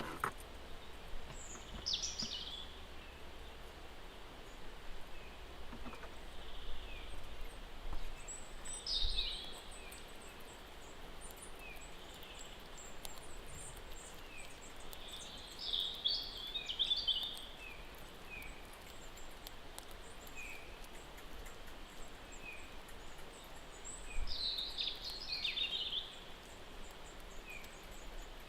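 Wild songbirds singing: a short, high song phrase about every seven or eight seconds, with faint short chirps about once a second and a thin high twittering, over a steady hiss of ambient noise.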